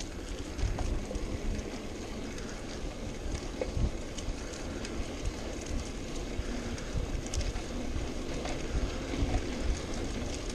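Wind rushing over a bicycle rider's action-camera microphone, with gusty low buffeting, the hiss of tyres on a paved path and occasional light clicks.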